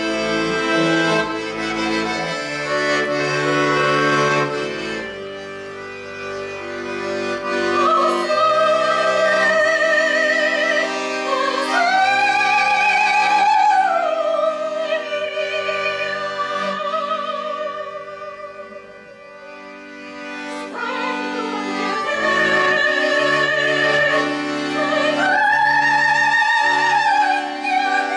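Chromatic button accordion playing slow held chords and bass notes, while a woman sings long sustained notes with a wide vibrato in an operatic style. The music quietens twice and swells again.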